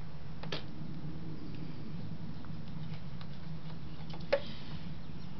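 Light clicks and taps of a knife trimming the freshly cut end of a rubber intake hose, with one sharper click a little after four seconds, over a steady low hum.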